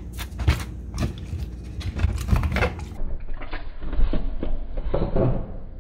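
A dog nosing and biting at holes in a paper-covered wooden panel to get at a treat: irregular taps, knocks and scuffs against the paper and frame.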